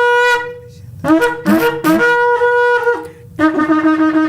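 A shofar (ram's horn) is being blown. A held note stops just after the start, followed by a run of short broken blasts, then a long steady note at a lower pitch.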